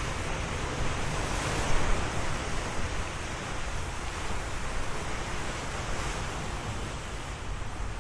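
Ocean surf: waves washing in with a continuous rushing hiss and a low rumble, one wave swelling louder about two seconds in before easing off.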